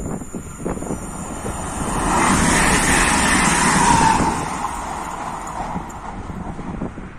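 Newag Impuls electric multiple unit passing close by at speed: a rush of wheel and rail noise that swells to its loudest between about two and four seconds in, then fades as the train draws away.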